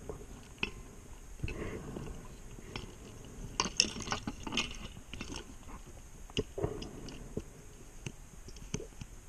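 Scuba regulator breathing heard through an underwater camera housing: bursts of exhaust bubbles gurgling, the loudest a few seconds in, among scattered clicks and knocks of gear against the housing.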